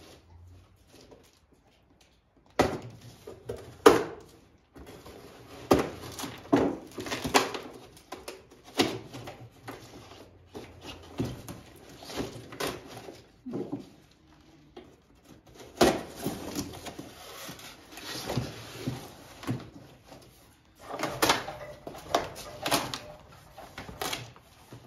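A shipping box being unpacked by hand, with the straps cut, the cardboard opened and the parts of a hydraulic top link kit handled. There is a string of irregular knocks and clatters with rustling of packaging between them.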